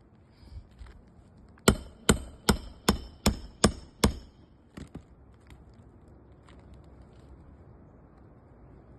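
Hammer striking a roof snake to drive a roofing nail under an asphalt shingle: seven sharp blows in quick even succession, about two and a half a second, then a lighter tap.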